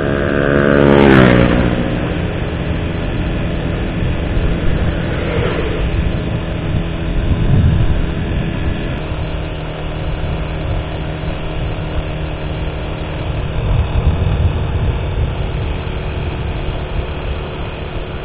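Steady engine and road rumble of a vehicle driving along an open road. About a second in, an oncoming car passes, its engine note falling in pitch as it goes by, with a fainter passing sweep about five seconds later.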